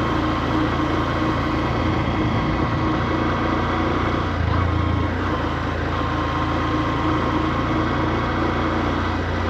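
Honda CB125F's single-cylinder four-stroke engine running at steady low revs, held down because the new engine is being broken in, with a brief swell in the low end about halfway through.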